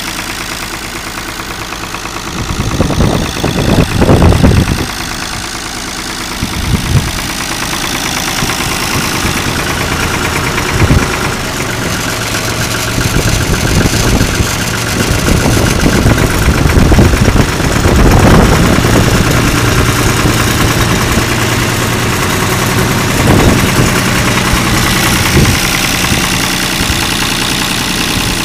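1974 Long 350 tractor's direct-injected diesel engine idling with a steady clatter, with a few brief louder surges along the way.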